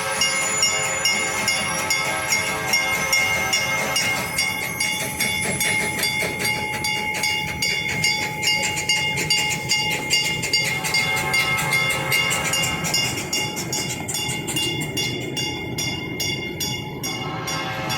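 Train running along the track: a rapid, regular clatter of wheels over the rails, with steady high tones held over it that fade out in the last few seconds.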